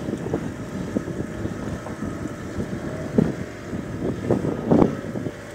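Wind buffeting the microphone in irregular gusts, over a faint steady hum.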